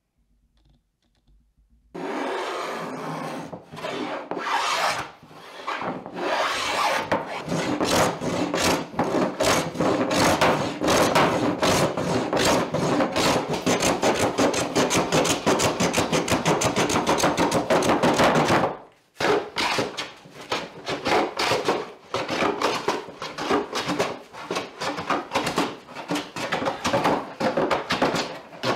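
Steel bench plane shaving across a glued-up wooden table top while its show face is flattened: fast, repeated rasping strokes. They start about two seconds in and break off briefly about two-thirds of the way through.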